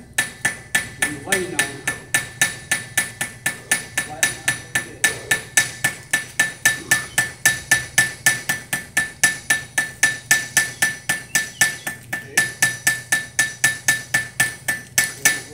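Hand hammer forging a piece of iron on an anvil: a steady run of blows, about four a second, each with a bright metallic anvil ring. There is a brief falter about three-quarters of the way through.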